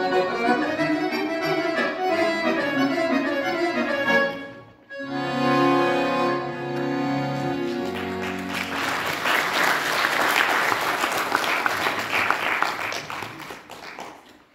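Solo piano accordion playing a fast run of notes, breaking off briefly, then sounding a held chord that ends the piece. Audience applause follows about halfway through and dies away near the end.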